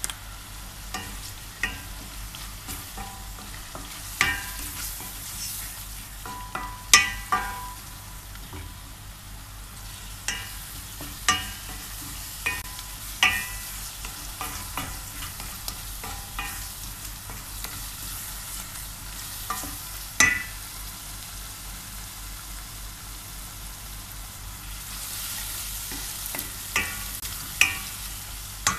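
Wooden spoon stirring and clacking against a stainless steel pot as chopped onion and red spice fry in oil, over a steady sizzle. The spoon clacks come irregularly, the loudest about seven and twenty seconds in.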